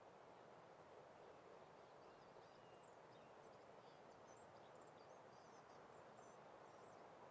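Near silence: a faint steady outdoor hiss, with a distant bird's faint high chirps from about one and a half seconds in until near the end.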